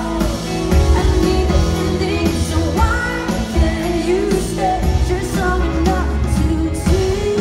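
Live pop-rock band playing loudly through a stage sound system, with a sung vocal melody over bass guitar and drums, heard from within the crowd.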